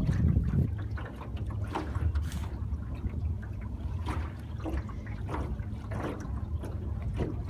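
Water slapping and splashing against the hull of a moving boat in short irregular bursts, over a steady low rumble.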